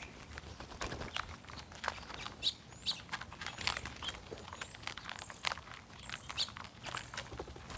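Small birds chirping in short, high notes among frequent sharp taps and clicks.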